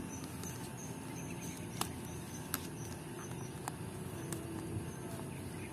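Plastic toy packaging with a cardboard header being worked open by hand: a few sharp clicks and light crinkling over steady outdoor background noise, with a faint high chirping repeating a few times a second.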